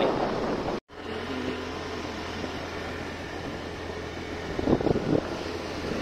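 Steady hum and road noise of a moving vehicle, starting after a brief drop to silence about a second in, with a few short voice-like sounds near the end.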